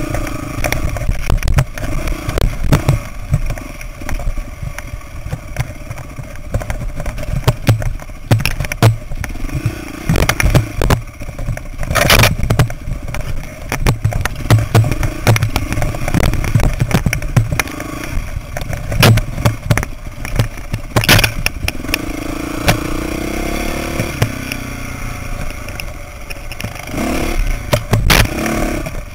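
Dirt bike engine running and revving up and down on a rough trail, with the bike clattering and rattling over rocks and ruts. A few sharp knocks stand out, the loudest about 12 and 21 seconds in.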